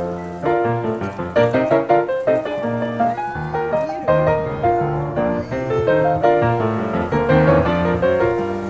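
Background piano music, a busy melody of quick successive notes.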